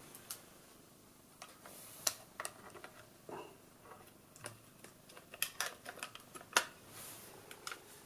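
Light, irregular clicks and taps of a Radiomaster AG01 mini all-metal CNC hall-effect joystick gimbal being fitted into a Radiomaster Zorro radio controller and seated in place. There are sharper clicks about two seconds in and again past the middle.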